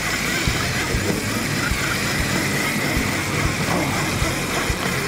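Boat engine running steadily under a constant rush of wind and sea.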